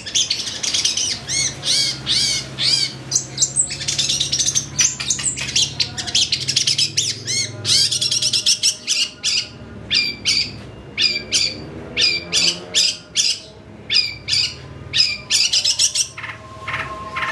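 Long-tailed shrike (cendet) singing hard, a fast unbroken stream of short harsh chatters and quick trilled notes, packed with mimicked calls of other birds.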